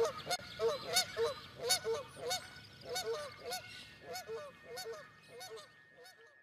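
Geese honking over and over, several calls a second, fading away near the end.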